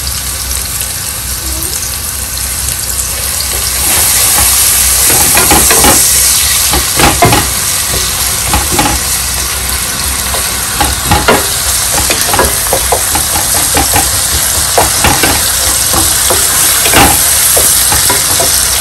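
Chopped onions sizzling in hot oil in a square pan, with a wooden spatula stirring them and striking and scraping the pan in many short strokes. The sizzle grows louder about four seconds in.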